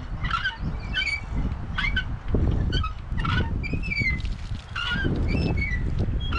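Hand lever water pump being worked. The handle squeaks on each stroke, about once a second, over a low rush of pumped water.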